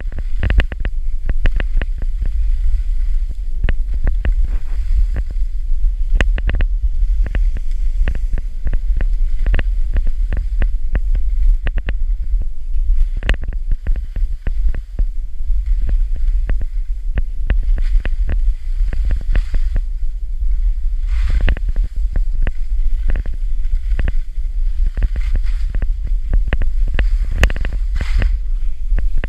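Wind rumbling on the microphone while skiing downhill, a steady low rumble, with irregular clicks and scrapes of skis running over the snow.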